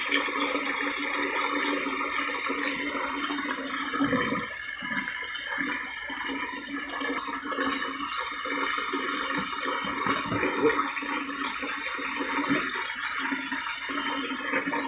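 Kitchen tap running steadily while smoked pork neck bones are rinsed under it, with a few soft knocks about four seconds in.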